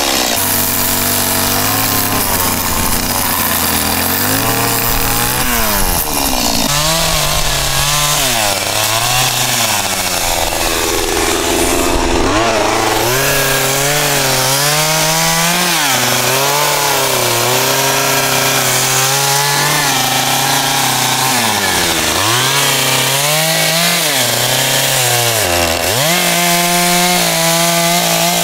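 Stihl two-stroke chainsaw carving into a wooden block, the engine running at high revs under load. Its pitch drops sharply and climbs back several times as the throttle is eased off and opened again between cuts.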